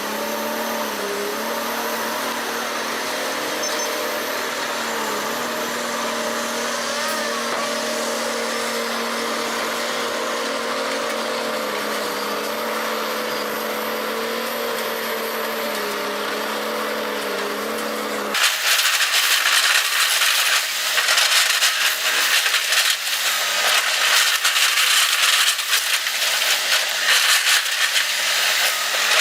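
A machine engine running steadily, its pitch dipping slightly now and then. About two-thirds of the way through it cuts abruptly to a louder, harsh crackling and rattling noise.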